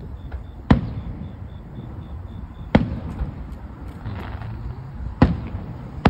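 Aerial fireworks shells bursting: three sharp bangs about two seconds apart, and a fourth right at the end.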